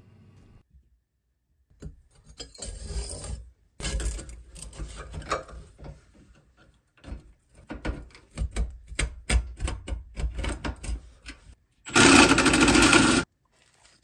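Flexible corrugated metal exhaust pipe scraping and rubbing against the wall and shelf as it is worked through a hole by hand, with small knocks and clicks. Near the end comes a loud harsh rasp lasting about a second.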